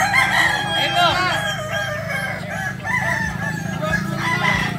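Many kukuak balenggek roosters crowing together, their long crows of many short rising-and-falling syllables overlapping into a continuous chorus, over a steady low hum.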